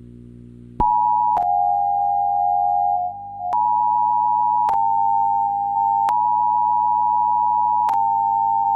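Emergency Alert System two-tone attention signal, a harsh steady pair of tones near 900 Hz, starting about a second in. It has been edited with sharp clicks at the cuts, and it drops to a lower pitch for about two seconds before jumping back up. A faint low hum sits underneath.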